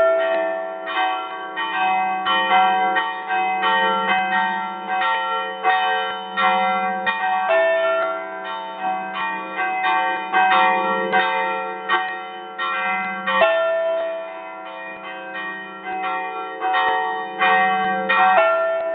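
Church bells ringing a festive peal: several bells struck in quick, overlapping succession, several strokes a second. The deep hum of a large bronze bell close overhead swells every couple of seconds.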